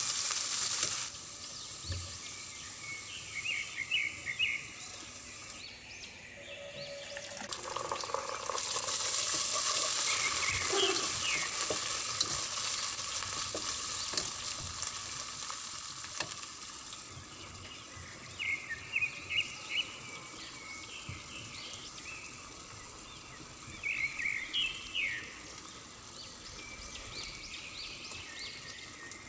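Spices frying in hot oil in a pan with a steady sizzle. It is broken four times by short bursts of stirring and scraping against the pan.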